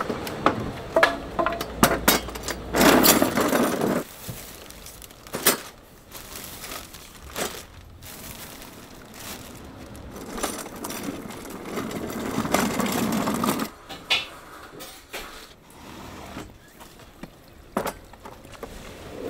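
Kitchen work: scattered knocks and clatter of utensils and containers, with two louder rushes of noise, about three seconds in and again about twelve seconds in.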